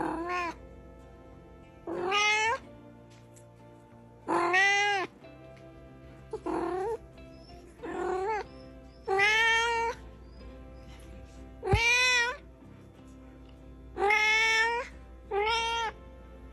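A cat meowing over and over: nine loud meows, each about half a second to a second long, one every one to two seconds.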